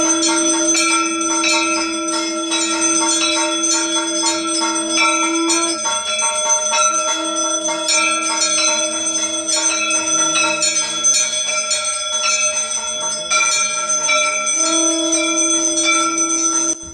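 Brass puja hand bell (ghanta) rung continuously in rapid strokes during an aarti, its ringing overlapping. A steady held note sounds over it three times, each lasting several seconds.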